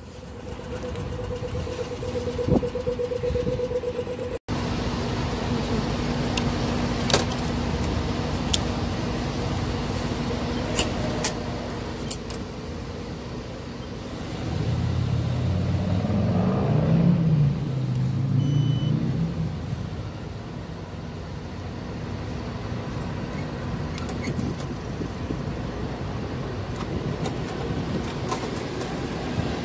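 Outdoor street noise in which a motor vehicle's engine passes close by, rising to its loudest about halfway through and then fading. A few sharp clicks come before it.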